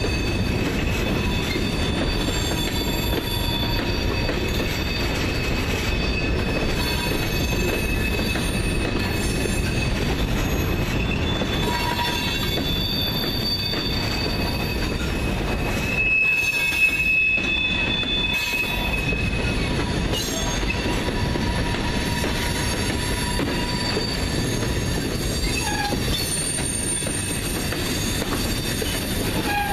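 CSX freight train's hopper and gondola cars rolling past on a curve: a steady noise of steel wheels on rail with a high wheel squeal held in several tones. About 17 seconds in, one squeal swells briefly louder.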